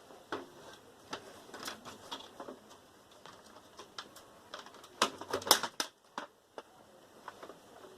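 Irregular clicks and knocks of parts being worked loose from a Sony VAIO PCV-2236 desktop tower during disassembly, with a denser run of sharp clicks about five seconds in.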